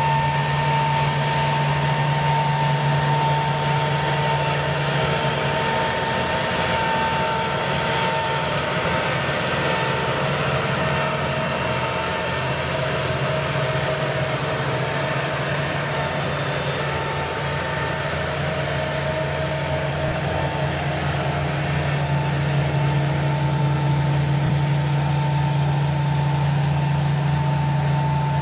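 Palesse GS12 combine harvester at work: a steady low engine drone with a constant high whine over it. It fades a little in the middle and grows louder again near the end.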